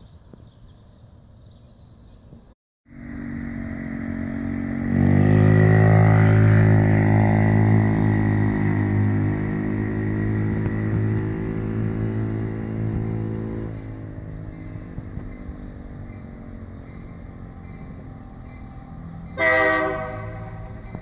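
Diesel locomotive air horn sounding a long blast that grows louder a couple of seconds in and runs about ten seconds, then a short blast near the end, with the locomotive's low rumble beneath. This is a crossing warning as the train approaches.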